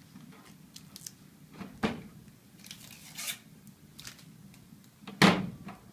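Protective plastic film being peeled off a new HP LaserJet 400 M475dw printer, with short crinkles and rustles and a few sharp plastic knocks from the printer's panels and lid. The loudest knock comes near the end.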